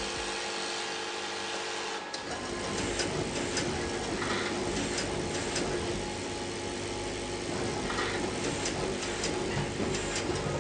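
Duplo print-finishing system running: a steady machine hum, then from about two seconds in a busier mechanical noise with rapid small clicks as the sheet-handling mechanisms work.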